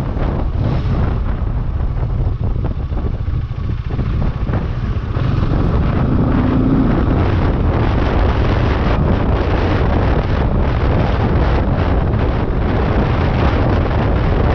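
Wind rushing over the microphone of a motorcycle on the move, with the bike's running underneath; the rush gets louder about five seconds in.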